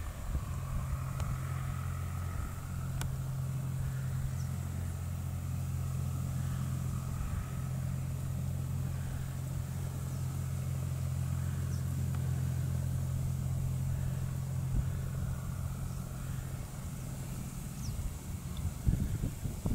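A steady low engine drone, fading out near the end.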